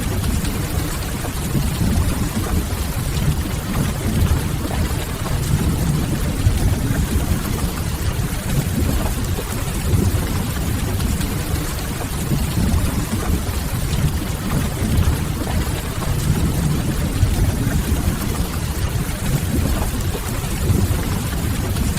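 Steady rain with a deep, continuous low rumble underneath, mixed with the soft crackling of a wood fire.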